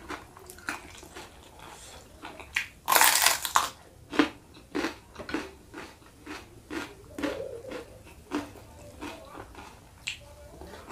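Close-miked eating: one loud crunching bite about three seconds in, then steady chewing of crunchy food, about two chews a second.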